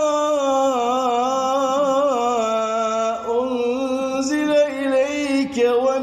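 A man reciting the Quran in melodic tajweed style, drawing out the words into long held notes that waver and turn in pitch.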